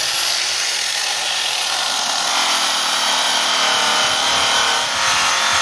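Handheld power tool spinning a cloth buffing wheel and rubbing it against the metal dome cover of a vintage Gaggia Orione espresso machine, polishing it. It runs at a steady level throughout.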